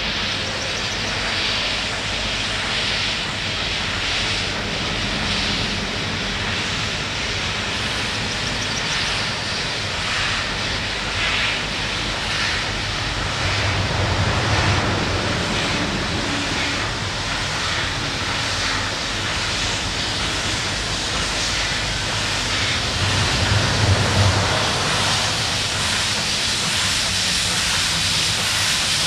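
Steam locomotive running, its exhaust chuffing in a slow even beat over a steady hiss of steam. A deeper rumble swells twice, about halfway through and again near the end.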